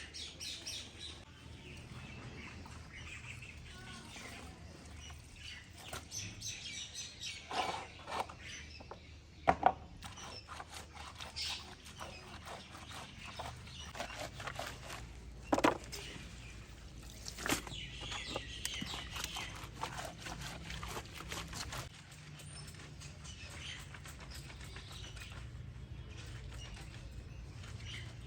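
Birds chirping, with a few sharp knocks or clatters over a steady low hum.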